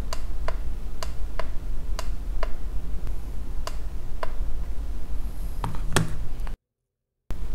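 Light, regular ticks about twice a second over a steady low hum, with a louder click near the end. The sound then cuts out completely for under a second.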